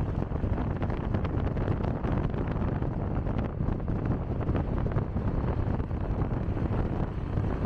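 Wind buffeting the microphone: an uneven low rumble with no clear tone.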